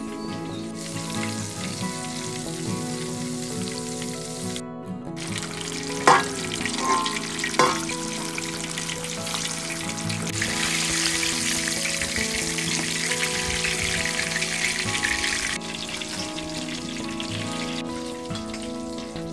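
Battered pieces of food deep-frying in hot oil in a wide metal wok: a steady sizzle, loudest through the middle stretch, that eases off near the end. A few sharp knocks come about six to eight seconds in.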